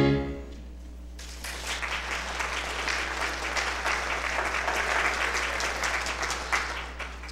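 A children's choir's last sung note dies away, then about a second later the audience applauds steadily for around six seconds before it stops.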